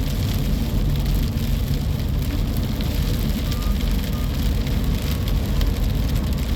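Strong wind storm buffeting the microphone with a steady low rumble, while rain patters and crackles over it.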